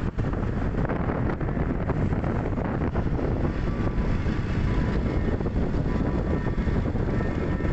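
Steady traffic and road noise heard while moving along a city avenue, with wind rumbling on the microphone.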